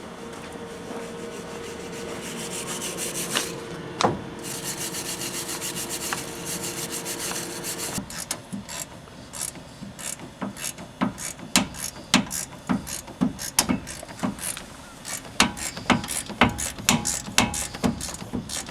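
Hand-tool work on the truck's wheel hub: steady rubbing over a faint hum for the first half, then a run of irregular scraping, rasping strokes, a few a second.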